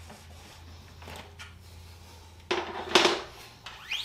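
Mountain bike's rear thru-axle being loosened and pulled out of the hub: a few light clicks, then two sharp metal clacks about half a second apart, and a short rising squeak near the end.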